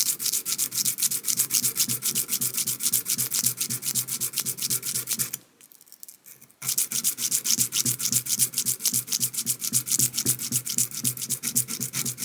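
Steel screwdriver bit being rubbed back and forth on 150-grit sandpaper to thin its tip, in quick, even scraping strokes of about six a second. The strokes stop for about a second midway, then carry on.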